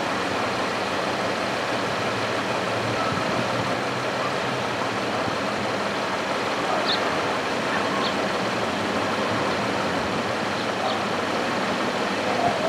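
A 2018 Chevrolet Colorado pickup's engine idling steadily, with a low even hum, as the truck creeps slowly forward.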